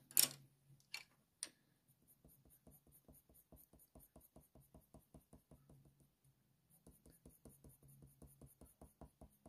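Faber-Castell Polychromos coloured pencil working in short, quick strokes on hot-press watercolour paper: faint, even ticks about five a second, pausing briefly about two-thirds of the way through. A few light clicks sound at the start.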